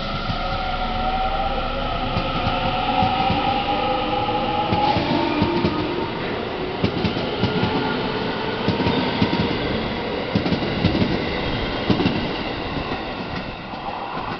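Local electric commuter train pulling out: its motor whine rises in pitch as it accelerates, then the wheels clack rhythmically over the rail joints as the cars roll past.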